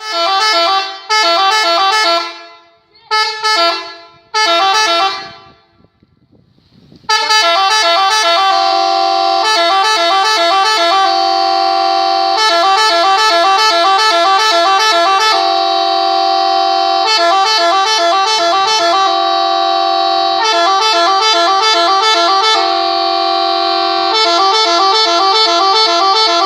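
Telolet musical air horn, several trumpets sounding together and switching rapidly between notes in a warbling tune. It gives four short blasts in the first five seconds, then after a short pause plays one long, almost unbroken run of the tune with some chords held.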